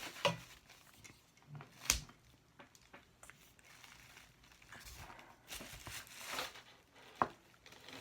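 Handling noise from a flexible ring light being adjusted: a few sharp clicks and knocks with soft rustling in between.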